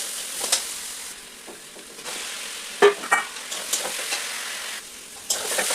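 Food frying and sizzling in a pan while being stirred, with a few sharp knocks of the utensil against the pan, the loudest about three seconds in.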